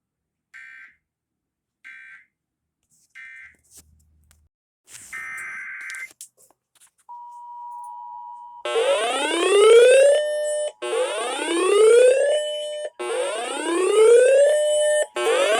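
Emergency Alert System tones: three short digital data bursts a little over a second apart, then a longer data burst, then the steady two-tone EAS attention signal. From about nine seconds in, a loud rising whoop repeats about every two seconds over the attention tone.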